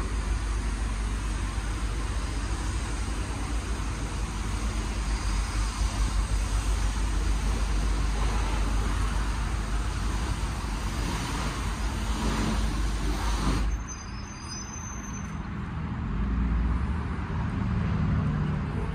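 Outdoor road-traffic noise: a steady low rumble with a hiss above it, which drops away suddenly about fourteen seconds in.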